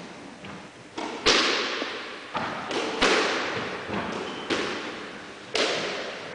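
Squash rally: the ball struck by rackets and slamming off the court walls in an irregular run of sharp hits, each followed by a ringing echo of the enclosed court.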